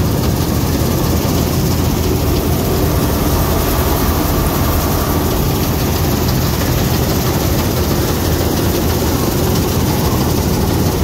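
International Harvester 321 combine harvester running steadily at work, cutting and threshing wheat: a loud, continuous mechanical din with a deep engine drone, heard from the open driver's platform.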